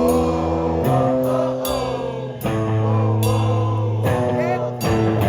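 Live blues-rock band playing: distorted electric guitar chords with drums, and some singing.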